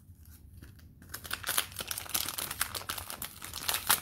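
Plastic cellophane wrapper of a football card cello pack crinkling and tearing as it is ripped open, starting about a second in.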